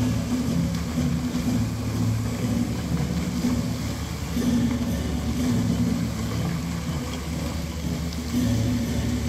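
Lit water-fountain show on a pond: steady low rumbling of the pumps and rushing water jets, with low sustained tones that shift every second or so.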